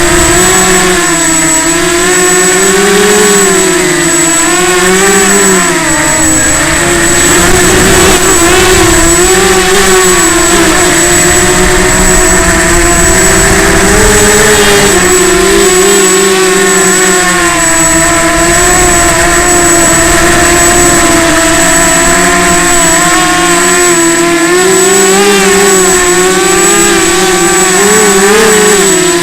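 Motors of an FPV drone whining continuously, their pitch rising and falling as the throttle changes, with a steady thin high tone above them.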